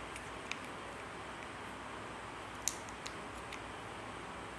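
A few faint, short clicks of small plastic torch parts being handled and fitted into the opened torch casing, over a steady low hiss.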